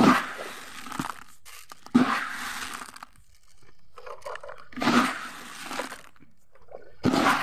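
Sharp crunching cracks, four of them, two to three seconds apart, with quieter rustling between.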